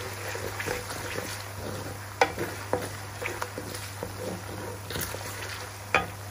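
Ginger-garlic paste and whole spices sizzling in hot oil in a metal karahi as a wooden spoon stirs them, with a few sharp clicks, the loudest about two seconds in and near the end.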